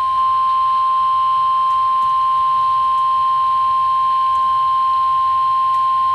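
NOAA Weather Radio 1050 Hz warning alarm tone: a single loud, steady tone held without a break. It signals that a warning broadcast follows, here a special marine warning.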